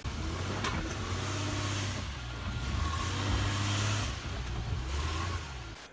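A car driving: a steady low engine hum under road and wind hiss, swelling a little about three to four seconds in and easing off near the end.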